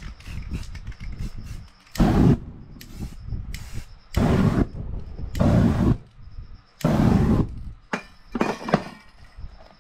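Aerosol spray paint can sprayed in about six short bursts of hiss, each lasting well under a second, with quieter handling noise between.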